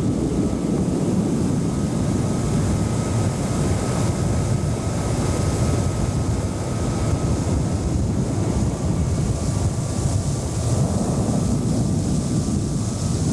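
Small boat's motor running steadily under way, with wind noise on the microphone.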